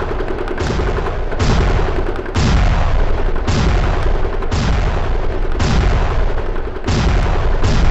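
A run of heavy gunfire blasts, about eight in a row roughly a second apart, each sharp at the start and trailing off in a low rumble: a dramatic gunfire sound effect.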